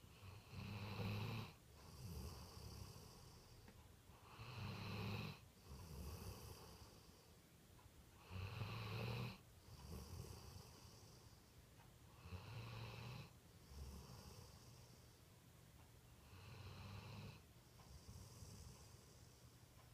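A black Labrador retriever snoring in its sleep: about five slow breaths, one every four seconds or so. Each breath is a louder snore followed by a softer one.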